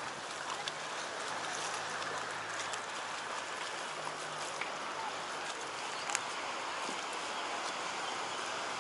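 Small sea waves lapping and washing against shoreline rocks, a steady watery wash. A faint low hum runs under it for the first few seconds, and there is a single sharp click about six seconds in.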